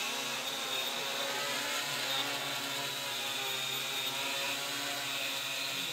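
Electric quadcopter's motors and propellers buzzing steadily in flight: a many-toned whine that drifts slightly in pitch as the throttle is corrected. It is holding a hover at just under half throttle.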